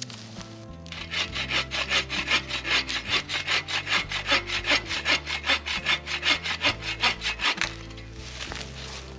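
Folding bow saw cutting firewood, a fast, even run of saw strokes through the wood. It starts about a second in and stops near the end.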